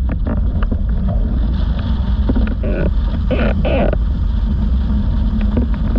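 Wind buffeting a rig-mounted action camera's microphone over the rush of water under a planing windsurf board, with spray and chop slapping against the board and bursts of splashing a few seconds in.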